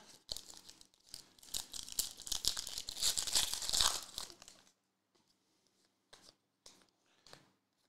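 Foil wrapper of a trading-card pack being torn open and crinkled for about four and a half seconds, then a few faint clicks as the cards are handled.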